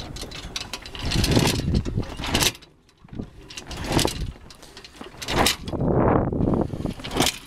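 Rushing wind-and-water noise aboard a small sailboat rolling in big swells, surging and easing every second or two, with light knocks and rustles from the slack mainsail and rigging.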